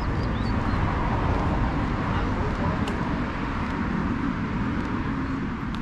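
Street ambience: a steady rumble of road traffic, with a few faint bird chirps near the start.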